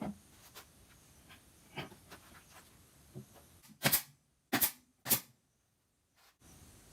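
Scattered light clicks and taps, then three sharp, loud knocks about half a second apart.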